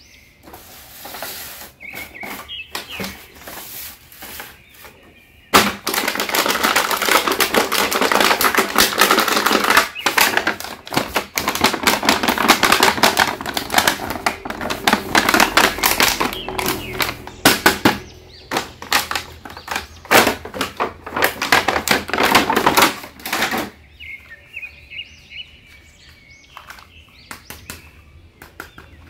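Clear plastic blister packaging crinkling and crackling loudly as a toy figure is worked out of it. It starts sharply about five seconds in and stops about three-quarters of the way through. Quieter clicks and faint tones come before and after.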